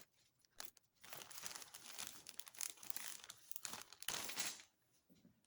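Faint, irregular crinkling of a plastic bag being handled as small original hardware is bagged, fading out near the end.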